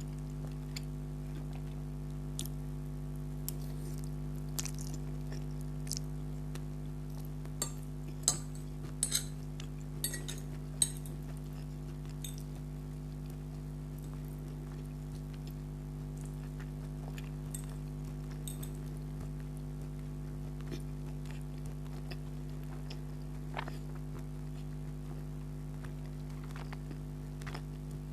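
Close-up eating sounds of spaghetti being chewed: scattered sharp mouth clicks and smacks, a cluster of louder ones about eight to eleven seconds in, over a steady low hum.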